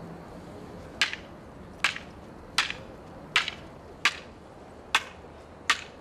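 Wooden tahtib staves clacking together in a stick duel: seven sharp strikes, about one every three-quarters of a second.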